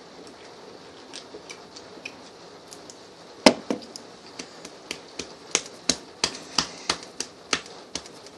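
Sharp taps and clicks: a few faint ones, then one loud knock about three and a half seconds in, followed by a regular run of taps about three a second.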